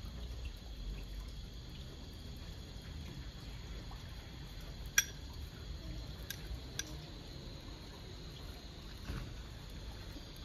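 Steady dripping of rain and sleet on wet ground, with a few sharp clinks of a metal spoon against a glass bowl, the loudest about halfway through.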